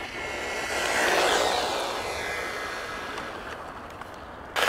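MJX Hyper Go brushless RC car at full throttle: a high electric-motor whine with tyre rush. It grows loudest about a second in, then fades as the car speeds away. A sudden loud rush of noise cuts in right at the end.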